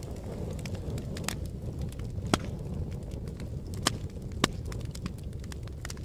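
Fire crackling: a steady low rumble of burning with scattered sharp pops, the loudest a little over two seconds in.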